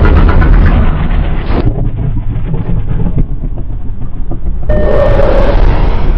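Loud, rumbling designed monster sound effects for a kaiju-style creature, played as separate clips that cut abruptly about a second and a half in and again near five seconds in; the last clip carries a steady tone through the noise.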